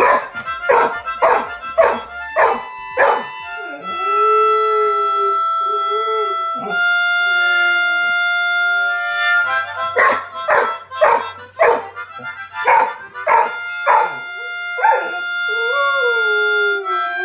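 Harmonica played in rhythmic chugging chords, about two strokes a second, then long held chords. A golden retriever howls along in wavering howls, first around the held chords and again near the end.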